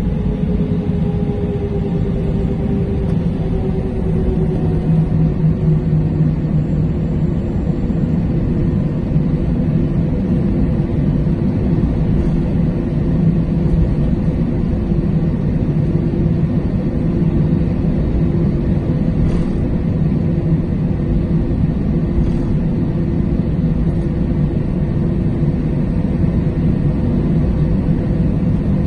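Airbus A320 cabin noise while taxiing, heard over the wing: a steady rumble and hum from the idling jet engines. A tone in the hum falls slowly over the first few seconds and then holds steady.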